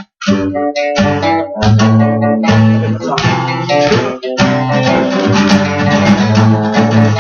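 Guitar strumming chords in an instrumental passage without singing, starting right after a brief silent break.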